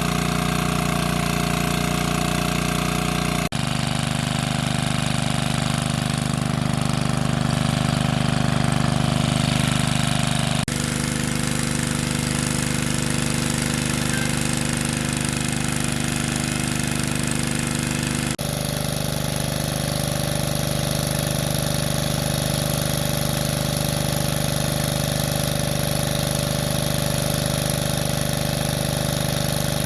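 Small petrol engine of a water pump running steadily, with a low mechanical drone; its tone shifts suddenly three times.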